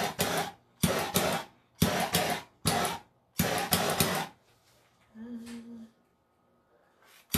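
Small handheld torch hissing in five short bursts over about four seconds, played over wet epoxy resin to pop surface bubbles. A faint short hum follows about five seconds in.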